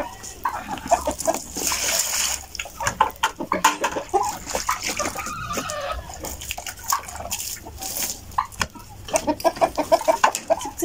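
Domestic hens clucking close by, with many short calls and a quick run of clucks near the end, among scattered small clicks.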